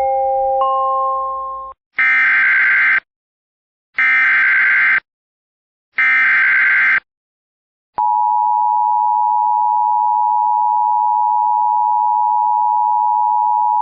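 Emergency Alert System broadcast tones: a rising three-note chime dies away in the first two seconds, then three one-second bursts of warbling digital data (the SAME header announcing the alert) sound two seconds apart. About eight seconds in, the steady two-tone EAS attention signal begins and holds.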